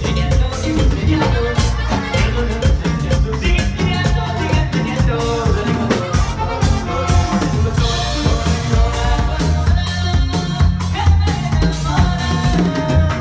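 Live norteño band music with drums and a steady beat, pitched melody lines running over it.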